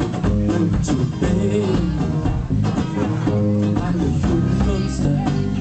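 Live band music in an instrumental passage: a strummed acoustic-electric guitar over a bass guitar line, with a steady rhythmic pulse.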